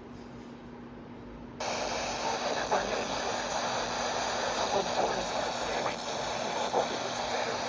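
FM radio static: a low hiss that jumps suddenly to a much louder, steady hiss about a second and a half in, as the radio is tuned toward 102.3 FM, with faint broadcast voices under the noise and a low steady hum throughout.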